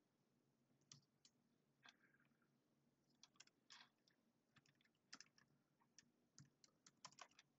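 Faint keystrokes on a computer keyboard: a few single key clicks, then quicker runs of taps in the second half as a file name is typed.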